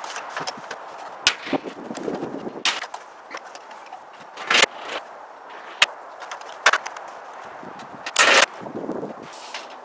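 Irregular sharp knocks and clatters of a long tongue-and-groove soffit strip being pushed and tapped into place overhead, about six louder hits, the longest a brief rattle near the end.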